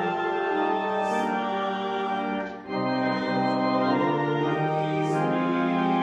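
Church organ playing slow, sustained chords, with a brief break between phrases about two and a half seconds in.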